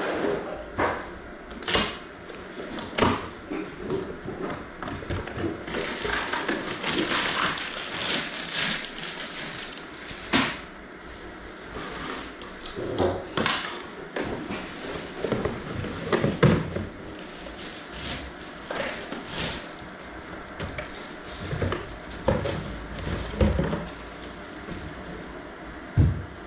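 A boxed cat flap being unpacked by hand: cardboard flaps and packaging rustling and scraping, with irregular knocks as the box and the plastic flap unit are handled and set down on a tiled floor. Plastic bag crinkling as the parts are taken out, and a sharp knock near the end.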